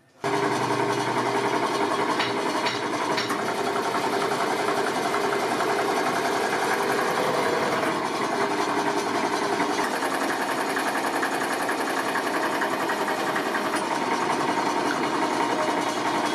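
Multi-station ball-moulding press machine running steadily, with a fast, even mechanical rattle. It starts suddenly.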